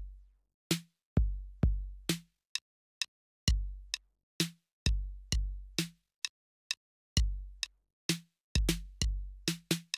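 TR-808-style drum machine plugin playing a programmed trap drum loop: deep kick hits with long decaying low tails, sharp snare hits and short hi-hat ticks in an uneven, repeating beat.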